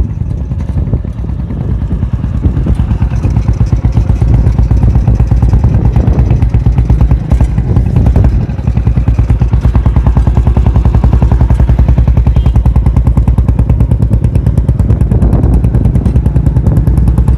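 Motorcycle's converted diesel engine running on petrol, a steady rapid beat of firing strokes that eases briefly a little past the middle and picks up again. The engine is prone to detonation, which the owner puts down to ignition timing or the fuel not yet being right.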